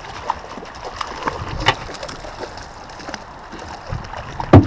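Steady rush of river water around a drifting boat, with scattered small clicks and knocks and one sharp, loud thump near the end.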